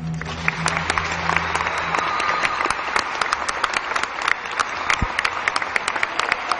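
Audience applauding, a dense patter of many hands clapping that starts abruptly at the finish of a karate kata as the performer bows.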